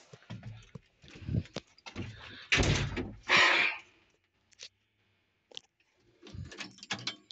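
Knocks, scrapes and thuds of someone climbing up metal steps into the cab of a Mertz 3250 Floater truck and settling in the seat, the two loudest thuds a little before halfway, then a few light clicks near the end.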